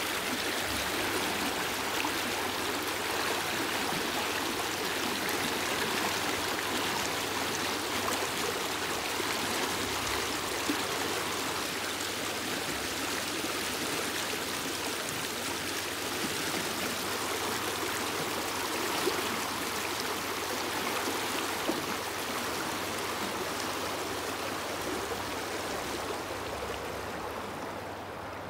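Shallow river current rushing and swirling over rocks: a steady, even rush of water that grows somewhat softer near the end.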